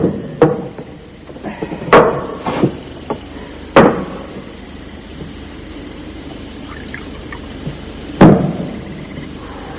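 Glassware being set down on a table: about five sharp knocks with a brief ring, spread a few seconds apart, the loudest near the start and again about two, four and eight seconds in.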